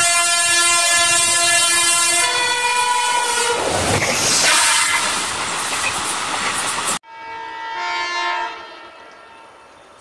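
Indian Railways locomotive horn sounding one long multi-tone blast for about three and a half seconds, followed by the rushing clatter of passenger coaches passing close by. After an abrupt cut, a fainter horn from another locomotive sounds for about a second and a half.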